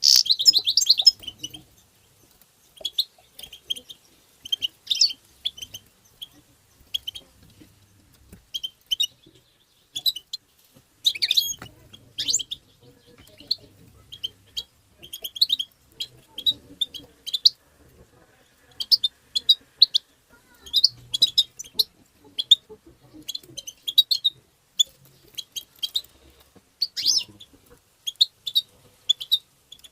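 European goldfinch giving short bursts of high, twittering chirps, repeated every second or so with brief pauses between them.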